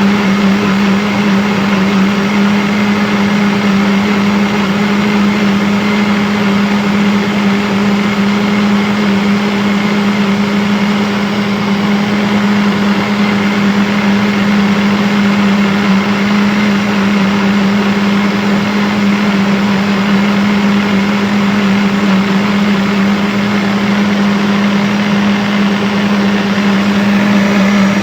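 Electric blender motor running continuously at one speed: a steady hum with a rush of noise above it, unchanging in pitch and loudness.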